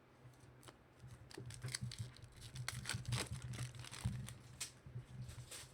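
Trading card packs and cards being handled: a run of crinkling, tearing rustles and light clicks as wrappers are opened and cards are slid through the hands.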